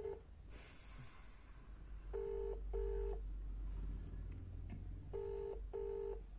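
Ringback tone of an outgoing phone call on speakerphone: a double ring, two short tones in a pair, repeating every three seconds while the call waits to be answered. A low hum sits under it.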